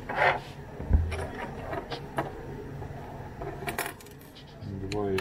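Small parts and multimeter probe leads handled on a workbench: a short scrape at the start, a dull knock about a second in, then several light clicks.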